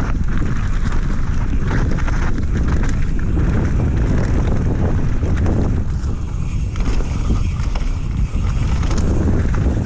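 Wind buffeting an action camera's microphone as a mountain bike rides fast down a dirt forest trail, its tyres rumbling over the ground, with scattered rattles and clicks from the bike.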